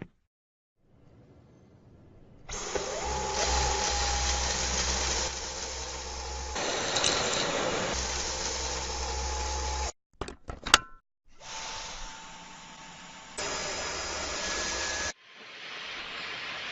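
A cordless stick vacuum cleaner's motor running with a steady whine and rush of air, in several separate stretches. Between two of them, a few sharp clicks.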